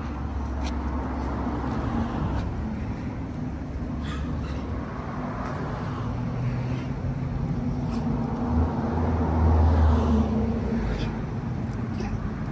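Road traffic: passing vehicles over a steady low engine hum, swelling and fading in waves and loudest about nine to ten seconds in. A few faint clicks are heard.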